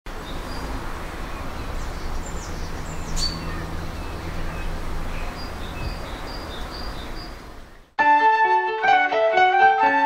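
Outdoor ambience: a steady hiss with a low rumble and a few short bird chirps. About eight seconds in it cuts off and piano music begins.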